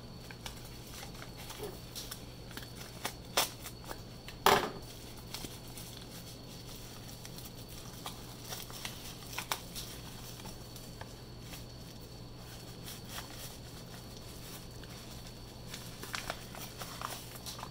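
Paper shipping mailer being handled and opened by hand: scattered crinkling and rustling with sharp crackles, the loudest a little over four seconds in, over a low steady hum.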